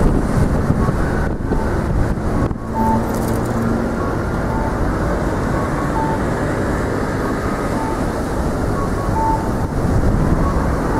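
Steady street traffic noise, with short beeps repeating about every second and a half.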